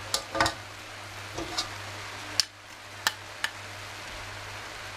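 Metal spoon stirring shredded cabbage and carrots in a wok, with a few sharp clicks and scrapes of metal on the pan over a soft frying sizzle and a steady low hum.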